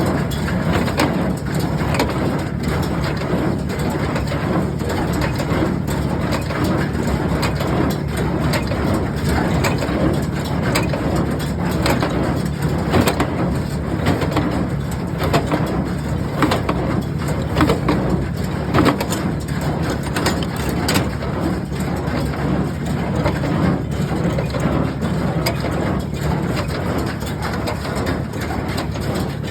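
Ford 532 small square hay baler running off a tractor: a steady low engine drone with frequent irregular clacks and knocks from the baler's mechanism.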